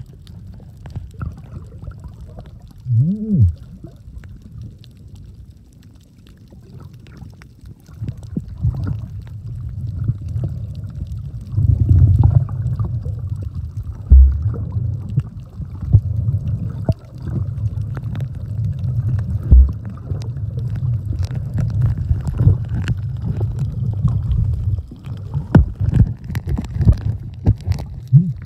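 Underwater sound picked up by a submerged camera: a muffled low rumble and gurgling of moving water, with scattered clicks and knocks, growing louder about eight seconds in. A brief rising-and-falling tone sounds about three seconds in.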